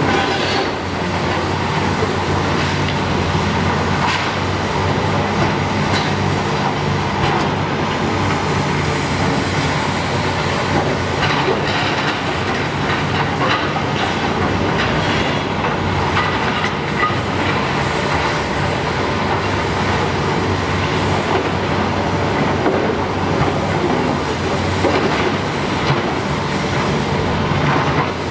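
Caterpillar demolition excavators running steadily while a high-reach demolition arm breaks into a concrete apartment block, with frequent clattering and crunching of concrete and metal debris.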